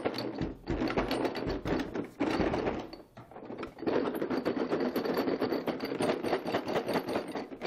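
Steel sockets and tools rattling and clattering inside a closed hard plastic tool case as it is shaken hard, with a short lull about three seconds in.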